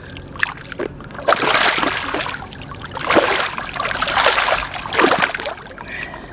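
Large blue catfish thrashing at the water's surface as it is landed by hand, splashing in about five bursts, the longest around two and four seconds in.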